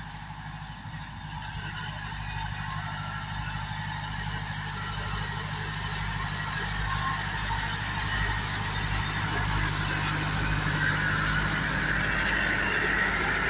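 SAME orchard tractor's diesel engine running steadily while its rear rotary tiller works the soil, growing louder as it comes closer, with a rushing churn from the tiller in the last few seconds as it passes close by.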